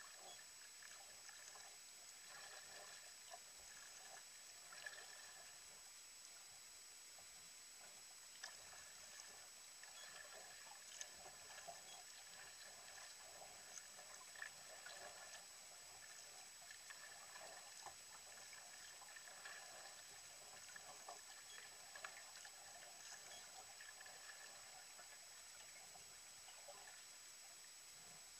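Faint trickling and dripping of sea water off a kayak paddle's blades during steady paddling, with small splashes and ticks scattered through, over a steady faint high-pitched whine.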